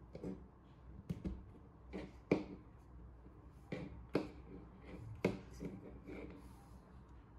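Jumper wires being pushed into a solderless breadboard and a small oval speaker handled on a tabletop: a string of irregular clicks and taps, about ten in all, the loudest a little past two seconds in, over a faint low hum.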